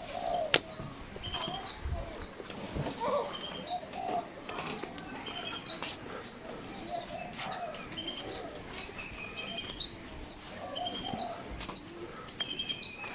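Birds chirping: a steady run of short, high chirps, about two a second, with softer, lower calls beneath.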